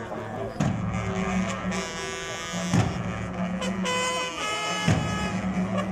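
Music with a steady low drone and a heavy beat about every two seconds; a brighter, held higher note comes in about four seconds in.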